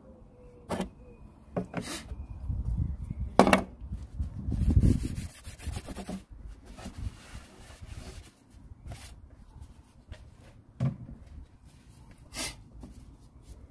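Hands working around the oil filler on a plastic engine cover: rubbing, with scattered clicks and knocks. The loudest knock comes about three and a half seconds in.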